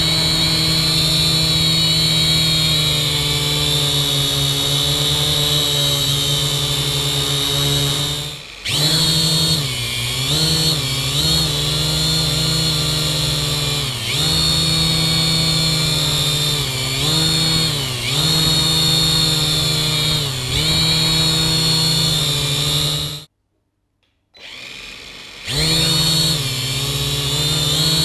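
Kaideng K70C quadcopter's motors and propellers whirring in a hover, picked up by the GoPro riding on the quadcopter, with a steady high whine. From about a third of the way in the pitch dips briefly and recovers every second or two as the motor speed changes, and the sound cuts out for about two seconds near the end before coming back.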